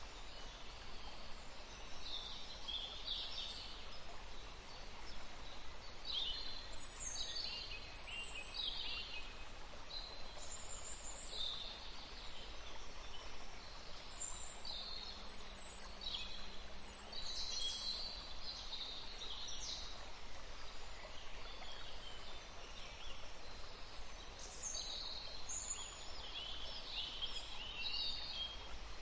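Forest ambience: several songbirds singing and calling in short repeated phrases over a steady rush of running water.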